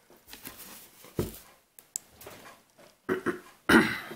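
Cardboard thermostat box being handled and opened on a table: scattered rustles and knocks, a low thump about a second in, a sharp click near two seconds, and a louder scraping rustle of cardboard near the end.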